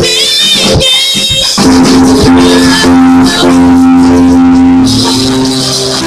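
Church worship music played on instruments, with long held chords and wavering high notes over them.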